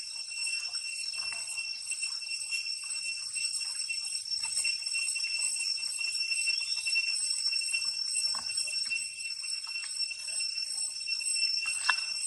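Steady high-pitched drone of insects, with a few faint splashes of water from a baby long-tailed macaque swimming in the pond.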